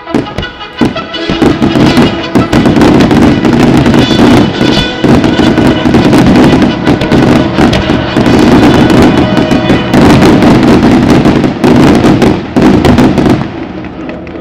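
Fireworks display firing in rapid succession: dense bangs and crackling bursts over the show's music. The barrage thickens about a second in and drops away near the end, leaving the music.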